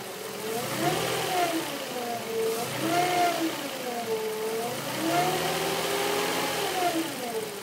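2005 Nissan Xterra's 4.0-litre V6 engine revved up and let back down three times. The owner is chasing a weird buzzing sound from the vehicle.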